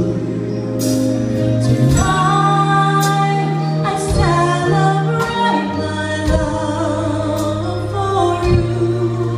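A woman and a man singing a duet with a live band, through a handheld microphone recording of the PA. Held bass notes and keyboards sit under the voices, with a drum hit about every two seconds.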